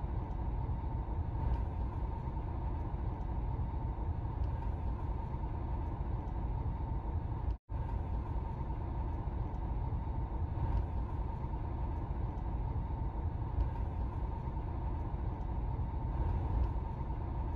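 Car driving, heard from inside the cabin through the dashcam's built-in microphone: a steady low road and engine rumble. The sound cuts out for an instant about eight seconds in.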